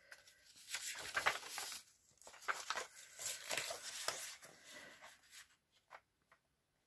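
Paper being handled and slid into place on a paper trimmer: soft rustling, sliding and light taps, stopping about five and a half seconds in.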